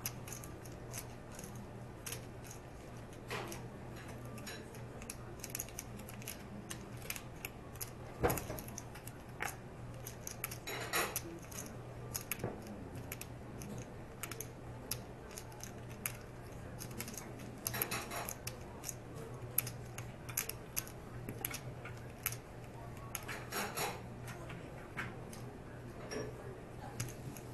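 Clay poker chips clicking and clacking as they are handled at the table: scattered sharp clicks, with short rattling runs about 11, 18 and 24 seconds in. A steady low hum runs underneath.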